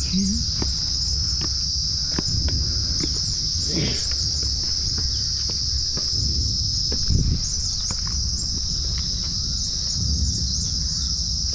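A steady, high-pitched chorus of insects in the forest, with scattered clicks of footsteps on the path.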